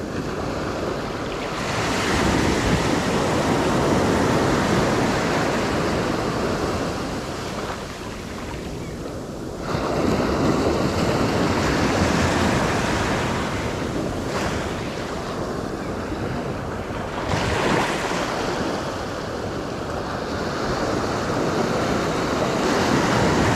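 Ocean surf breaking and washing up the beach, swelling and easing several times, with wind buffeting the microphone.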